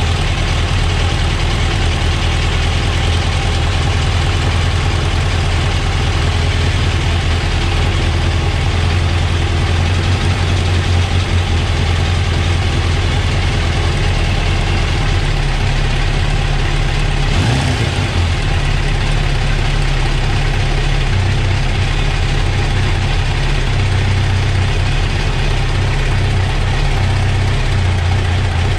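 Motorcycle engine on freshly rebuilt Keihin carburettors idling steadily while it warms up to temperature before the carbs are balanced.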